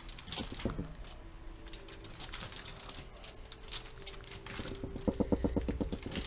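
Kitchen knife scoring slits into a raw white bass on aluminium foil and a plastic cutting board: small scrapes, taps and foil rustles, then near the end a quick run of rapid sawing strokes as the blade cuts through the skin.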